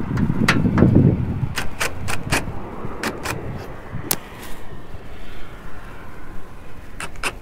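Scattered sharp clicks and knocks of a screw and screw gun being handled against the van's metal window frame, with a low rumble in the first second.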